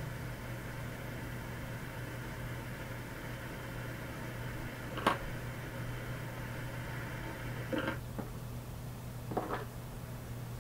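Steady low electrical-sounding hum with a faint hiss, broken by a few short clicks about five, eight and nine and a half seconds in.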